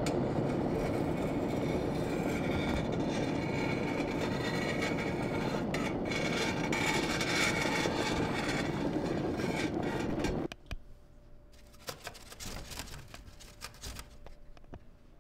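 Dense, steady rumbling noise, heaviest in the low range, that cuts off suddenly about ten seconds in. Faint scattered clicks and knocks follow over a quiet background.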